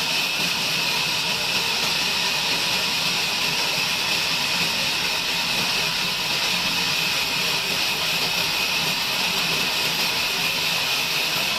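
Sawmill band saw running steadily: an even, high-pitched hiss with a faint steady whine, no starts or stops.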